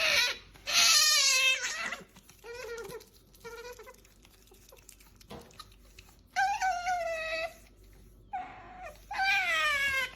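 Asian small-clawed otter calling for food: a string of about six high, whining calls with short pauses between them, the loudest near the start and a few quieter ones in the middle.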